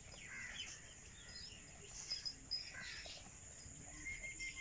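Faint outdoor ambience: scattered bird chirps and short calls over a steady high insect buzz.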